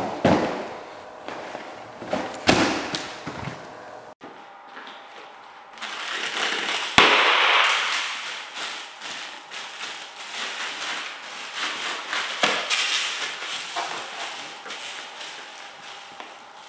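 Stocking feet thudding on a padded mat, then a mylar foil balloon bursting with one sharp bang under a stomp about seven seconds in, followed by crinkling and crackling of the flattened foil underfoot.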